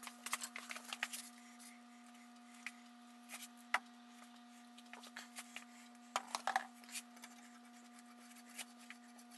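Faint scattered clicks and knocks of metal bar clamps and wooden boards being handled during a glue-up, the sharpest one about a third of the way in and a short cluster about two-thirds in, over a steady low hum.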